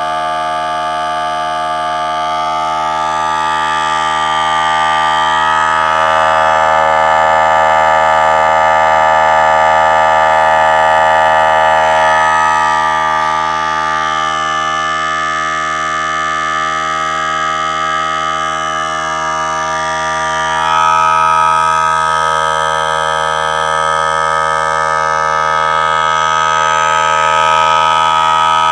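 Central Pneumatic 3-gallon, 1/3 horsepower electric air compressor running steadily, a pretty noisy pitched drone from its motor and pump as it pumps up its tank toward its 100 psi maximum.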